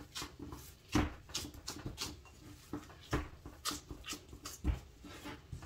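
Gloved hands pressing and patting soft pastry dough in a porcelain bowl: a string of irregular short thuds and knocks.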